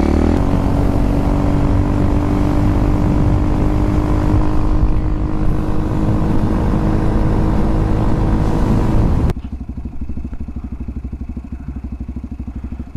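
Beta RR 125 motard's single-cylinder four-stroke engine running at a steady pitch on the move. About nine seconds in the sound cuts off suddenly and gives way to the engine idling, quieter, with a regular low pulse.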